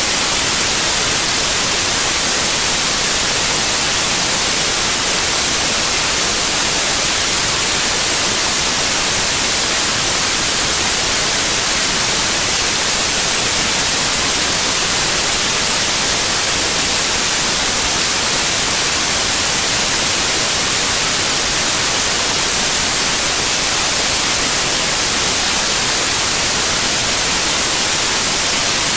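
Steady, even static hiss with no other sound in it, strongest in the high range: electronic noise on the recording's audio track.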